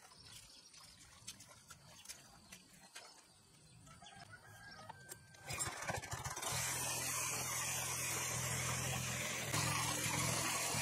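Chickens clucking faintly, then about halfway through the small engine of a walk-behind tiller comes in and runs steadily as its blades churn through wet mud.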